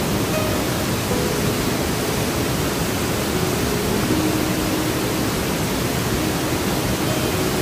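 Stream water rushing over rocks, a steady, even rush with no breaks.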